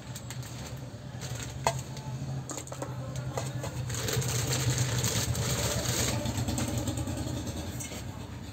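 Steady low engine hum, like a motorcycle idling, that swells in the middle and eases off near the end. A few light clicks come from the rice cooker's steamer basket and aluminium inner pot being handled.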